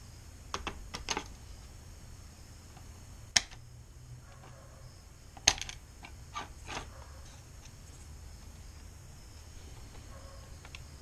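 Metal tin snips cutting hexagon grille mesh: scattered short, sharp snips and clicks, two of them loudest, about three and a half and five and a half seconds in.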